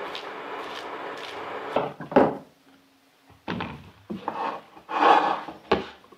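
Hands squeezing and massaging shredded raw cabbage in a glass bowl, a steady rustling. About two seconds in it stops with two sharp knocks, and after a short pause a silicone spatula stirs cooked rice and lentils in a stainless steel pot in a few scraping strokes.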